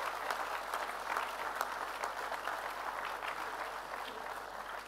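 Audience applauding, a dense patter of many hands clapping, starting to fade toward the end.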